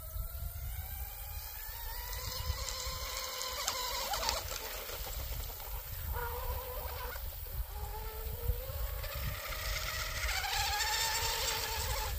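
Brushless electric RC outrigger boat running fast across a lake, its motor whine rising and falling in pitch as it runs past and the throttle changes, loudest twice. A low wind rumble on the microphone underneath.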